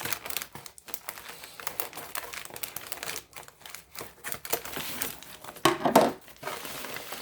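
A package being opened and its packaging crinkled and rustled by hand, in irregular bursts, with a louder burst of handling noise near the end.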